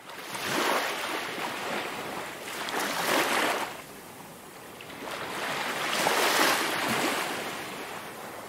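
Ocean surf washing onto a beach: two waves swell in and fall away, the second building from about five seconds in.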